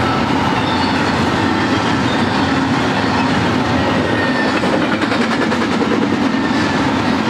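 Double-stack intermodal train's well cars rolling past: a loud, steady rumble of steel wheels on the rails, with faint high squealing tones from the wheels.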